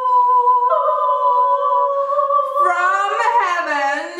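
A woman's voice holding a long sung note without words, with a slight step up in pitch about two thirds of a second in. Near the end the note turns wavering, with a lower line sliding down and back up.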